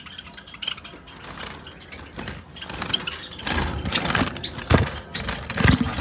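Clattering and rattling that grows loud about halfway through, with two heavy thumps near the end.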